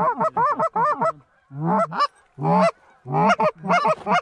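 Goose honks and clucks, several a second, coming in quick runs broken by short pauses.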